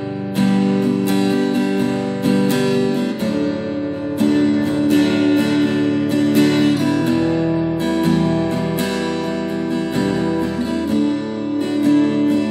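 Future FAG006C 40-inch acoustic-electric guitar with a linden body, strummed in chords with quick repeated strokes; the chord changes every second or two.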